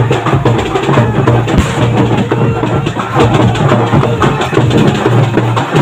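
Loud, dense drumming that runs without a break, with many quick strikes.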